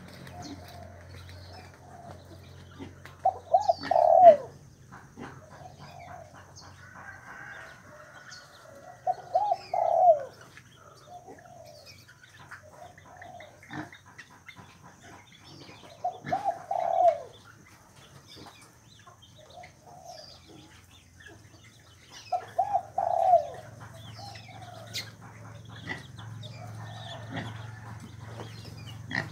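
Swamphens calling: four short bursts of quick, downward-bending notes, repeated every six or seven seconds, with fainter softer calls and light ticks in between.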